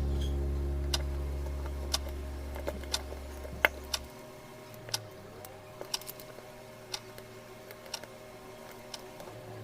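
Background music ending: a held guitar chord dies away over the first few seconds, with a regular tick about once a second continuing through.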